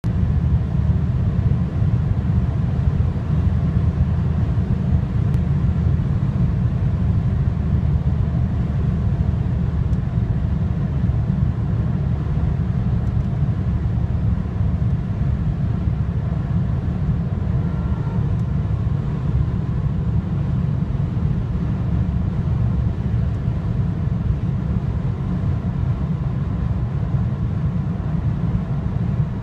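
BMW F30 320i cabin at high speed: a steady low rumble of road and wind noise, with faint high steady tones above it.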